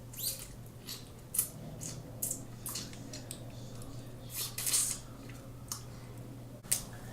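Snow crab leg shells being cracked and snapped open: a run of sharp, irregular crackles, the loudest a little before the middle and just before the end, over a steady low electrical hum.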